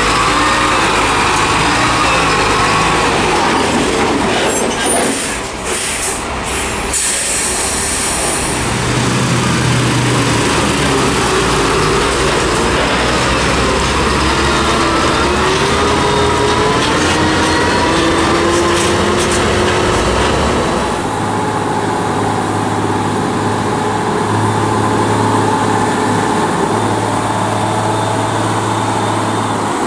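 UD Quester GKE 280 tractor's GH8E diesel engine running as the loaded truck pulls away, with a burst of air hiss about seven seconds in and the engine note rising under load. About two-thirds through it changes to a UD Quester GWE 370 with the GH11E diesel running past.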